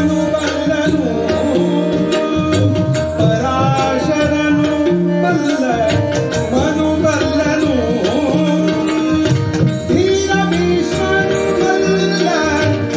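Kannada devotional bhajan performed live: a male voice sings an ornamented melody over held harmonium notes and a steady run of tabla strokes.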